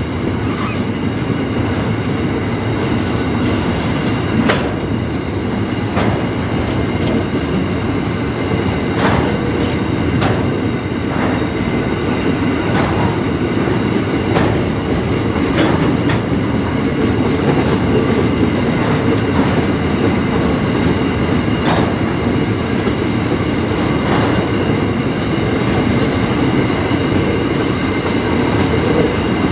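Loaded coal train's hopper wagons rolling past on narrow-gauge track: a steady rumble of wheels on rail, broken by sharp metallic clicks and clanks at irregular intervals.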